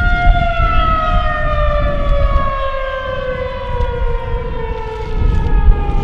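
Federal Signal 2001-SRN rotating outdoor warning siren winding down at the end of its steady full-alert tone. Its single held note starts falling about half a second in and keeps sliding lower, over wind rumbling on the microphone.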